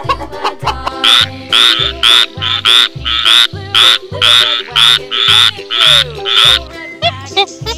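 Tree frog calling in an even series of loud croaks, about two a second, stopping near the end; background music with a steady bass beat underneath.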